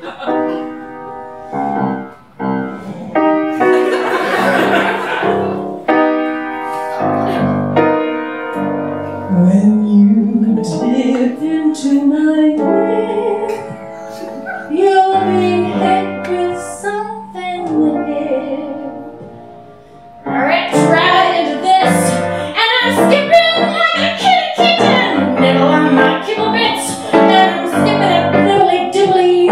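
Live piano accompaniment to a musical-theatre number, with a woman's voice singing over parts of it.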